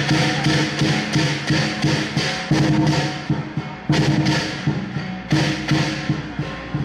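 Chinese lion dance percussion: a big drum beaten in a quick, steady rhythm together with clashing cymbals, with several louder accented crashes.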